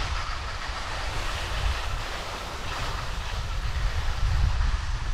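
Skis hissing and scraping over packed snow while skiing downhill, with wind buffeting the GoPro Max's microphone as a steady low rumble.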